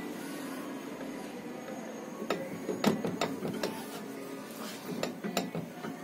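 A handful of light metal clicks and knocks, irregularly spaced, as an automotive alternator's two housing halves are handled and pressed together, over a steady background hum.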